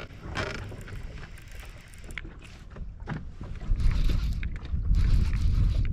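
Wind buffeting the microphone on an open boat deck: a few light clicks and knocks at first, then a loud low rumble setting in about four seconds in.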